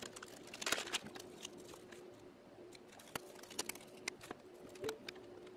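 Faint handling noises: a plastic bag rustling and crinkling, and a few light clicks and taps as thin laser-cut plywood case pieces are picked up and moved, over a faint steady hum.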